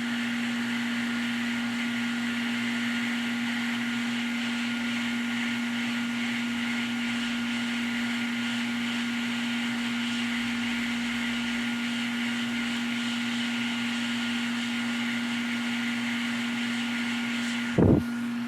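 Hot air rework station blowing steadily, a constant hum over an airy hiss, while solder reflows on a Nintendo Switch micro SD connector. A brief louder sound breaks in near the end.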